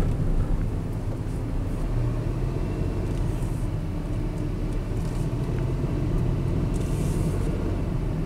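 Honda N-One Premium Tourer's small turbocharged three-cylinder engine and tyres heard from inside the cabin as the car rolls slowly at low speed: a steady low rumble.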